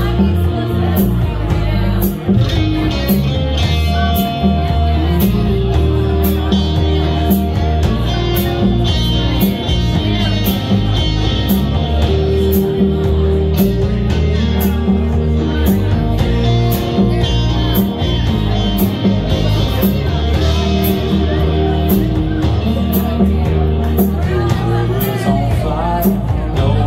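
Live rock band playing in a bar: electric guitars over a drum kit, with a steady beat of cymbal hits.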